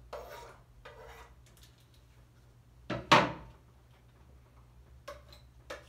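Kitchen knife cutting leafy ora-pro-nóbis greens on a wooden cutting board: a few scattered knocks and scrapes, with one louder knock about three seconds in.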